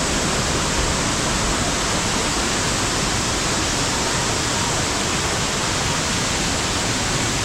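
A tall waterfall rushing steadily: a loud, even wash of falling water with no breaks.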